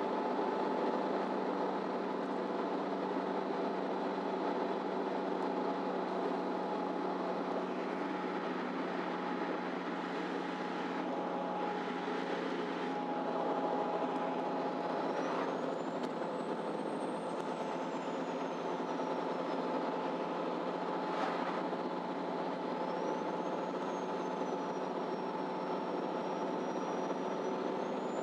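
Ride inside a MAN Lion's City Ü bus under way: the engine runs steadily, with a few short hisses and a high whine that rises and falls twice in the second half.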